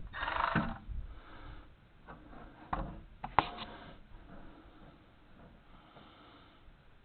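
A short breathy hiss, then a few sharp clicks and knocks of hand tools on the truck's rusted parts, then quiet.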